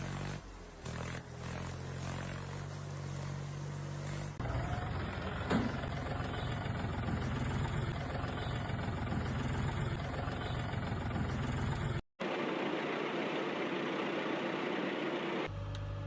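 Steady engine running sound, changing abruptly about four seconds in and again near the end, with a brief dropout a little after twelve seconds.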